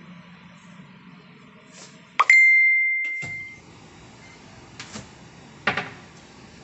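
A single bright, high ding that rings out and fades away over about a second and a half. Later there is a click and a short clatter of light knocks.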